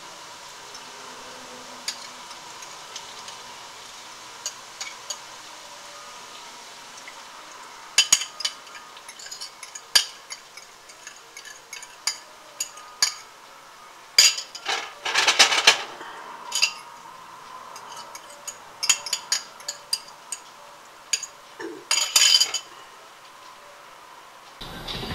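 A metal fork clinking and scraping against a ceramic bowl as the beaten egg is worked out of it into the frying pan, in irregular clusters of sharp clinks from about eight seconds in. Under it is the faint steady sizzle of potatoes frying in oil.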